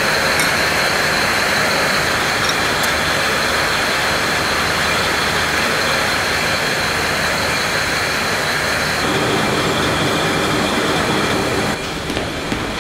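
Bottling-line conveyor of glass beer bottles running: steady dense mechanical noise with a high steady whine. The sound shifts about nine seconds in and drops in level shortly before the end.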